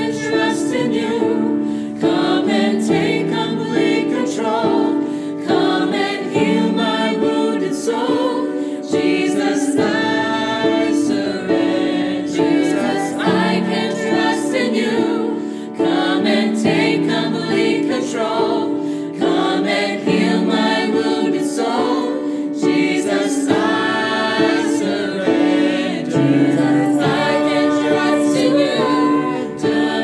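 Small mixed choir of men and women singing a Christian hymn in harmony, holding long sustained notes.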